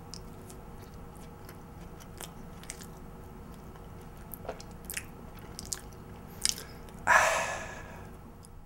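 A person chewing a mouthful of cake donut close to the mouth: soft, scattered clicks and smacks of the lips and mouth. About seven seconds in comes a louder, longer rush of sound that fades away.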